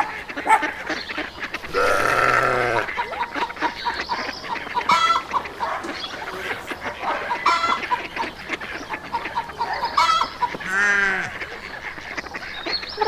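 A string of farm-animal calls, bird-like and separate: short pitched calls with several overtones, about half a dozen spread out. The longest comes about two seconds in, and another with a falling shape comes near the end.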